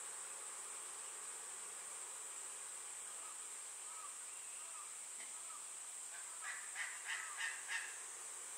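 Snowy owl chick calling: a few faint short calls from about three seconds in, then a run of about five louder calls near the end. A steady high insect drone runs underneath.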